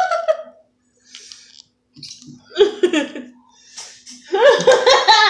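Women laughing in three bursts, the last and loudest about four seconds in, over a faint steady hum.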